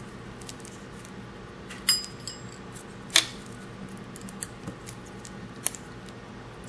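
Small metal clicks and ticks of an Allen key working screws out of a steel pump flange plate. About two seconds in, one clink rings on briefly, and a second later comes a single sharp click, the loudest sound. A low steady hum runs underneath.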